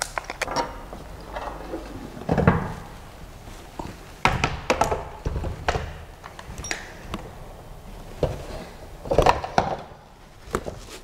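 Irregular knocks and clunks of a 3D printer's metal frame being handled and fitted together, the gantry set onto the base, with handling noise between the knocks. The heaviest clunks come a couple of seconds in and again near the end.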